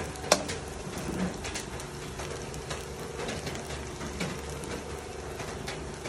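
A metal spatula scraping and clacking against an aluminium wok while stirring fried rice with shredded cabbage. The scrapes and clicks come at an irregular pace, with one sharper clack about a third of a second in, over a steady sizzle.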